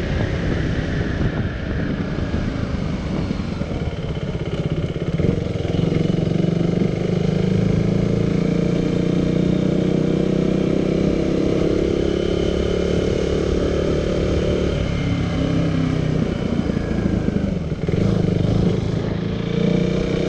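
KTM Duke 390's single-cylinder engine running under way. The engine note strengthens about five seconds in, then holds steady at cruising speed.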